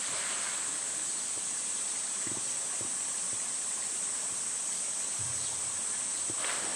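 A steady, high summer insect chorus with a few faint knocks. Near the end, a rush of splashing water begins as the polar bear goes into the pool.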